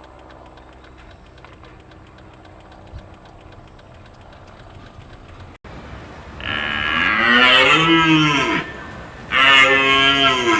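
A cow mooing: two long, loud calls that rise and fall in pitch, the first starting a little past halfway through. Before them, a faint steady hum cuts off abruptly.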